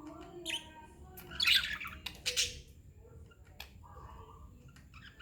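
Pet budgerigars chirping and squawking, a few short harsh calls with quieter chatter between them, the loudest about a second and a half in and again just after two seconds.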